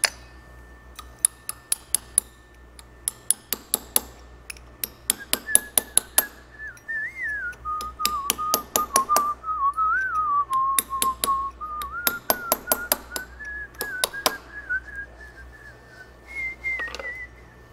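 Quick runs of light metal-on-metal taps, a small hammer striking a punch held against a steel driveshaft yoke, each tap ringing brightly. A man whistles a wavering tune over the taps from about five seconds in until near the end.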